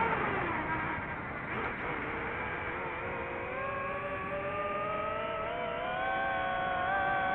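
Multirotor drone's propellers whining in flight, several tones at once. The pitch drops over the first second, then climbs slowly through the second half as the motors speed up.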